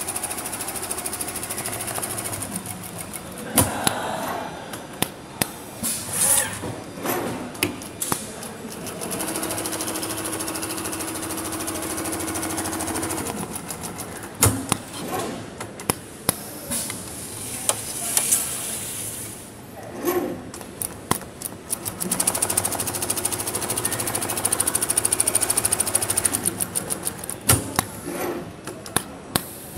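Industrial CNC twin-needle sewing machine with a rotating head stitching at speed, a fast, steady needle hammering. The stitching stops and restarts several times, with sharp clicks and knocks between seams, and a steady hum joins for a few seconds about nine seconds in.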